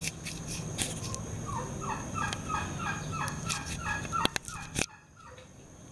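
A bird calling in a run of short falling notes, about three a second, for several seconds. A few sharp clicks come near the end.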